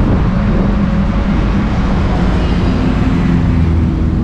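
Car engine and road noise while driving through city streets: a steady low rumble.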